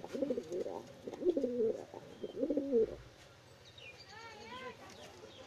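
Homing pigeons cooing in the nest box: three low, rolling coos in the first three seconds, followed about four seconds in by a brief run of higher chirps.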